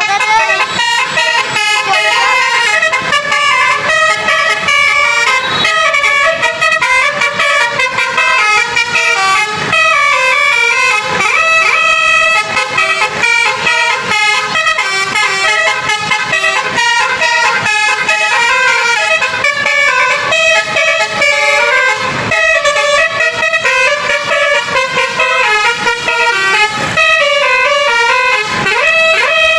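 Indonesian 'telolet' bus horn, a set of multi-tone air horns, playing a continuous string of quick stepping notes in a melody, with a few short sliding notes here and there.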